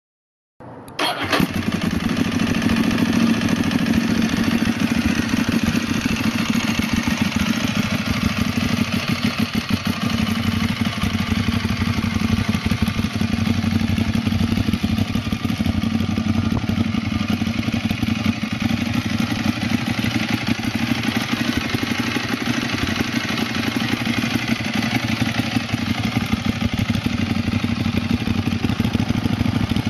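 Ducati 1098S's 1099 cc L-twin running steadily at idle through MIVV Suono slip-on silencers with their dB-killer baffles fitted, an even, loud pulsing exhaust note that comes in about a second in.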